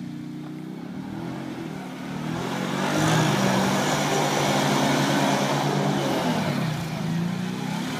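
Plow-fitted ATV engine revving up about two and a half seconds in, held high for a few seconds, then easing off near the end, with a rushing hiss from the wheels spinning on the snowy ice while it drifts.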